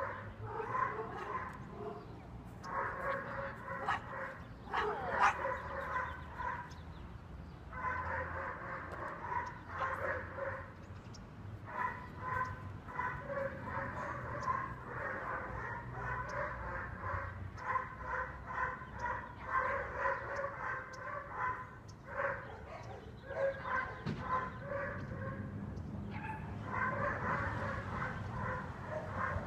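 German Shepherd puppy barking and yipping over and over, several barks a second in long runs broken by short pauses.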